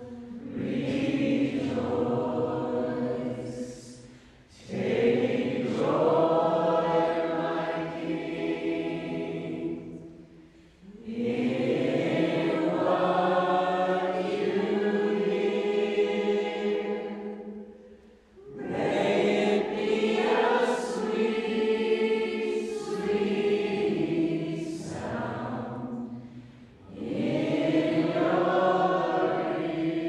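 A group of voices singing a slow hymn of worship in a church, in long held phrases with brief pauses between them every six to eight seconds.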